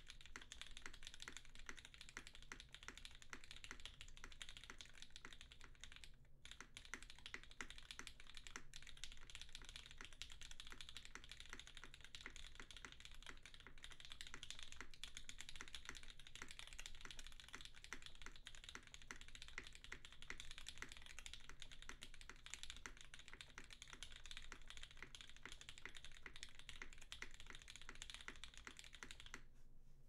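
Continuous fast typing on a Smith and Rune Iron165 mechanical keyboard with lubed vintage Cherry MX Black linear switches, an aluminium plate and GMK keycaps: a dense, steady stream of keystroke clacks with a couple of very brief pauses.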